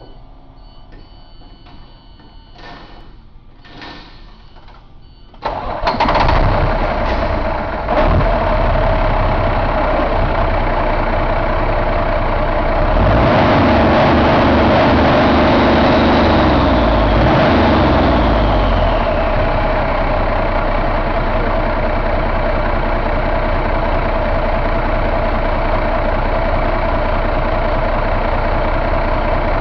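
Cummins ISX straight-six diesel engine starting up about five seconds in and running. About halfway through it speeds up for a few seconds, then its pitch glides back down and it settles to a steady idle.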